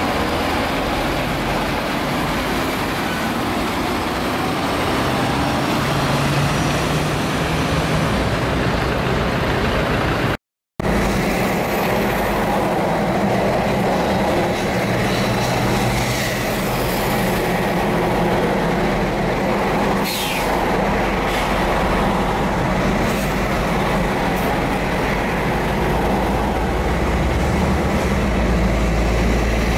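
Heavy-vehicle engine and road noise running steadily. About ten seconds in it drops out for a moment, then resumes as the steady drone of highway driving heard from inside a following car.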